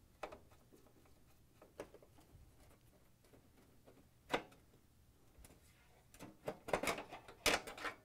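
Scattered light clicks and knocks of a Phillips screwdriver turning out screws and the metal spring-loaded oven door hinge being worked loose from the door, with a sharper knock about four seconds in and a quick run of rattling clicks near the end.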